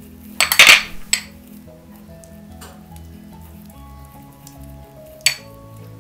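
Metal spoon scraping and clinking against a plate while spreading a thick sauce paste over raw pork chops: a loud scrape about half a second in, a shorter one just after, and a sharp clink near the end. Soft background music plays underneath.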